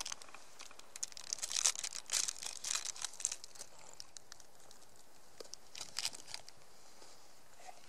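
Crackling, rustling noise close to the microphone in two bouts, a longer one from about a second in and a short one around six seconds: handling noise from the camera or clothing as it is moved.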